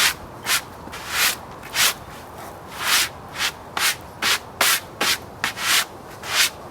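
Quick sweeping strokes brushing sawdust off the face of a freshly sawn red elm slab, about a dozen short rasping swishes, roughly two a second.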